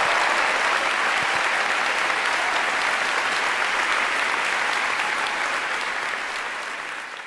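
Large audience applauding, a steady dense clapping that eases off slightly near the end.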